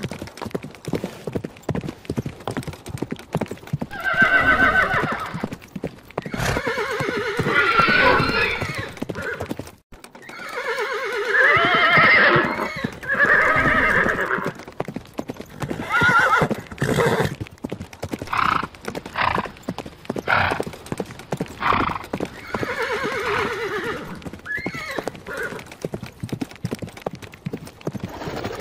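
Horses whinnying several times, long pitched calls, over hooves clip-clopping in a steady run of knocks. The sound drops out briefly about ten seconds in.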